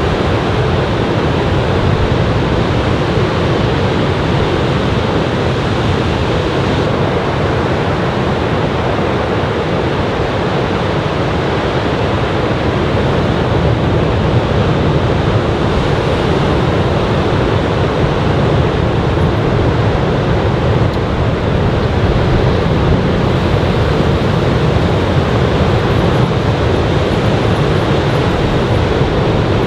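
Ocean surf from a typhoon swell breaking on a sandy beach: a loud, steady wash of waves, with wind on the microphone.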